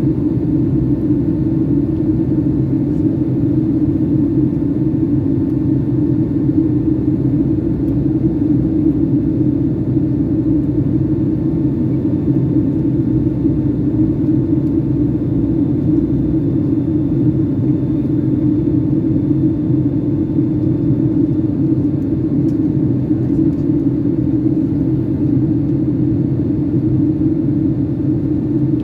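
Steady cabin rumble inside a Boeing 757-200 in flight: engine and airflow noise heard through the fuselage, with a faint steady whine above the rumble.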